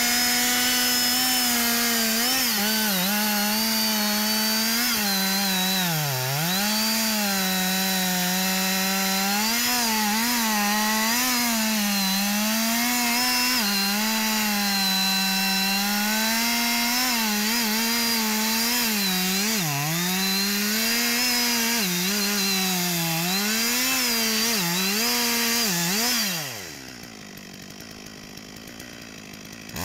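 Two-stroke petrol chainsaw running at full throttle while cutting into a thick tree trunk, its engine note dipping again and again as the chain bogs under load in the wood. Near the end the saw drops to idle for about three seconds, then revs back up.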